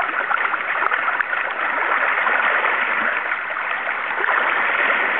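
Steady rush of river current flowing past a wading angler.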